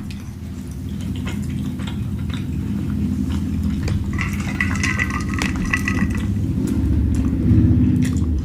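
Eating sounds close to the microphone: chewing, with light clicks of a fork against a plate, over a steady low rumble that grows slowly louder.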